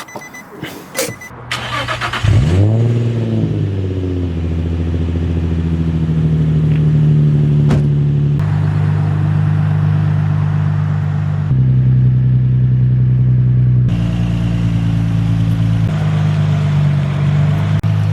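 Infiniti G35's 3.5-litre V6 started about two seconds in, its pitch flaring up and settling into a steady idle, after a few clicks.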